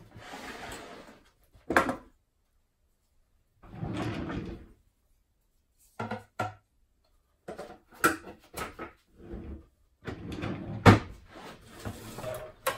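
Workbench handling sounds: a wooden drawer under the bench sliding open and shut with tools rattling inside, between scraping slides of plywood on the bench and several sharp knocks, the loudest about eleven seconds in.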